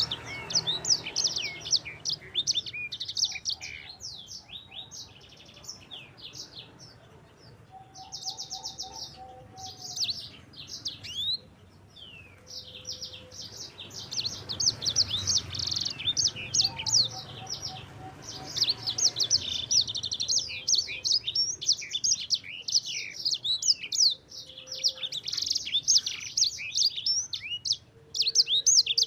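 Sanger songbird singing a long, rapid song of high chirps, whistles and trills, with two brief lulls.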